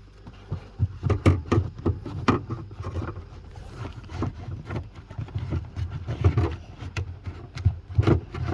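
Irregular clicks, knocks and rubbing from seatbelt hardware and plastic trim being handled and fitted into place, with low bumping on the microphone.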